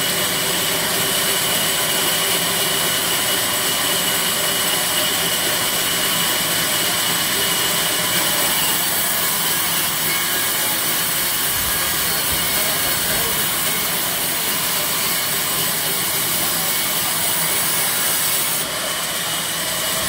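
Large sawmill band saw running steadily while banyan wood is fed through it: a constant high whine over a dense hiss, without pause.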